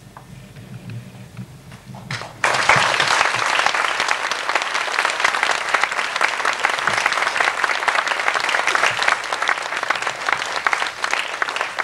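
Audience applauding. After a couple of quieter seconds, the clapping breaks out suddenly about two and a half seconds in and keeps on steadily.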